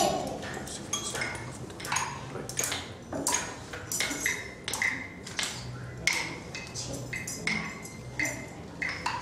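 Children striking the bars of Orff xylophones and a metallophone with mallets: scattered single notes, about one or two a second, each ringing briefly.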